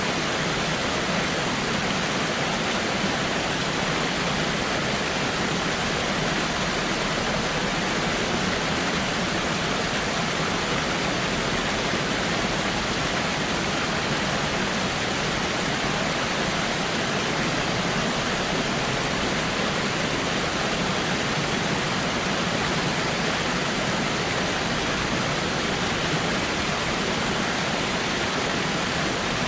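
Waterfall rushing: a steady, even roar of falling water with no breaks or changes.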